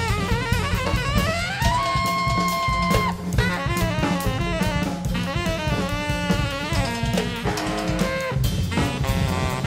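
Instrumental jazz: a melody line, with a long held note about two seconds in, over a busy drum kit.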